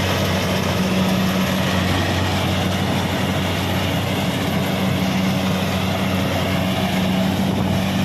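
Kubota DC-70 Plus combine harvester running steadily under load, its engine giving an even, unbroken hum.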